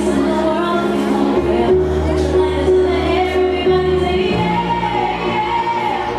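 Ballroom dance music playing for couples dancing, with long held bass notes that change every second or two under the melody.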